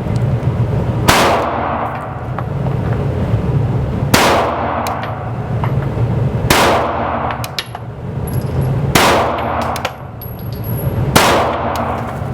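Springfield XD Mod 2 subcompact 9mm pistol fired five times, slowly and evenly, about two to three seconds apart. Each shot rings out with echo in an indoor range, over a steady low hum.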